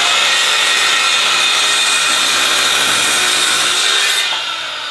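Corded circular saw running and cutting through a wooden board, a loud steady whine with the noise of the blade in the wood. It eases off a little near the end as the cut finishes.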